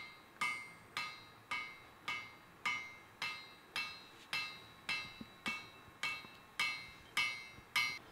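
Steady hand-hammer blows on a hot wrought-iron axe blade lying on an anvil, about fifteen strikes at a little under two a second, each with a short metallic ring from the anvil. The flat face of the hammer is smoothing out cross-peen marks in the blade.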